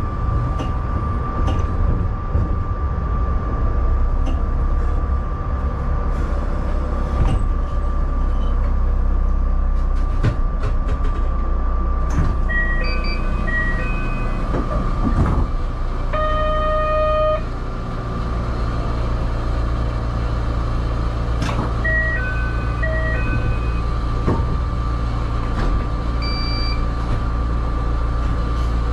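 Cab of a narrow-gauge (762 mm) electric train: a steady running rumble with a constant whine as it comes to a stop at a station. Short patterns of electronic tones sound about halfway through and again near the end, with a buzzer-like tone lasting about a second in between.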